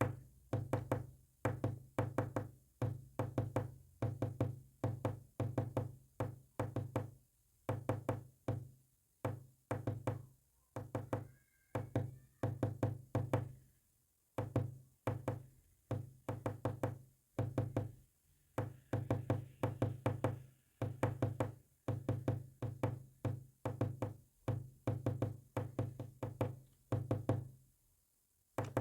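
Morse code sounded as a long run of short knocking bursts, roughly one to two a second. Each burst carries a low buzz, and a few longer pauses break up the groups.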